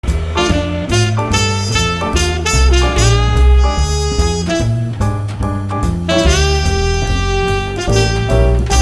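Intro music: upbeat jazz with a saxophone-like lead over a walking bass line.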